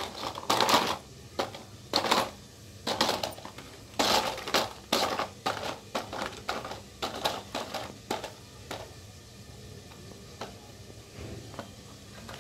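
Hard plastic toy cars and trucks knocking, rattling and scraping as they are handled and pushed on a concrete floor: a quick run of clatters through the first eight seconds or so, then only a few faint knocks.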